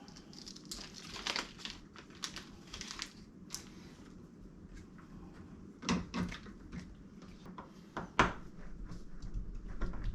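Irregular small clicks, scrapes and rustles of a screw being fitted and tightened into a smart deadbolt lock's interior housing, with a few sharper knocks, the loudest about eight seconds in.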